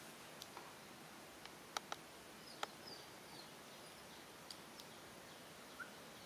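Quiet outdoor background hiss with a few sharp clicks, three of them louder about two seconds in, and several faint, short, high chirps.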